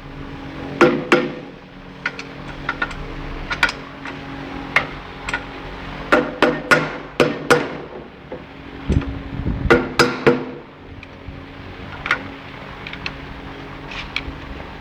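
Metal tools and motor parts knocking and clinking while an electric motor's bearing cover is taken off: irregular sharp taps and knocks, with a heavier thud about nine to ten seconds in, over a steady low hum.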